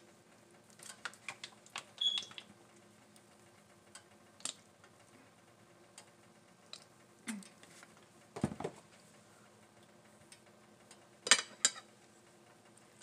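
Quiet, scattered handling sounds as ketchup is squeezed from a plastic squeeze bottle onto a plate, with a dull thump a little past the middle. Near the end come a couple of sharp clinks of a metal fork against a ceramic plate as the fork is picked up.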